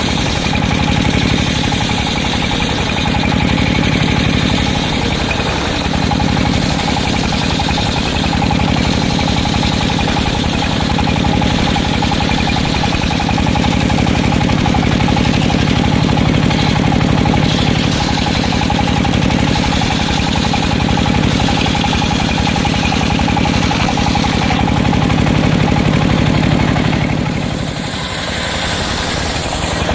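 Circular sawmill machine running with a steady mechanical drone, easing off briefly near the end.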